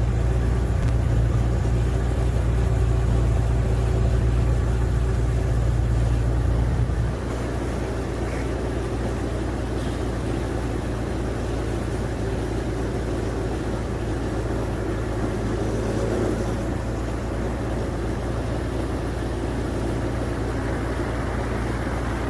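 Boat under way, its motor running steadily with a heavy low rumble that drops away about seven seconds in, leaving a steady engine and rushing noise.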